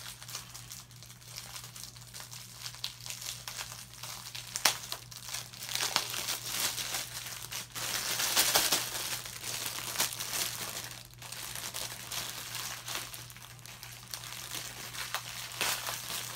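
Parcel wrapping and tape crinkling irregularly as a package is unwrapped by hand, with many small crackles. It is loudest around the middle.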